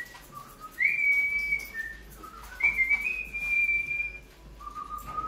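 A person whistling a slow tune of long, steady high notes, each starting with a slight upward slide, alternating with lower notes; a long lower note is held near the end.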